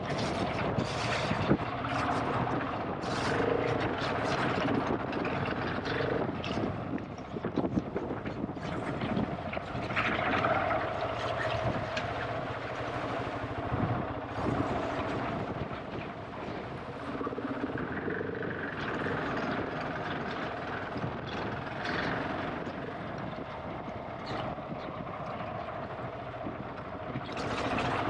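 GasGas ES700's single-cylinder four-stroke engine running while ridden off-road, its note rising and falling with the throttle, with frequent short knocks and clicks.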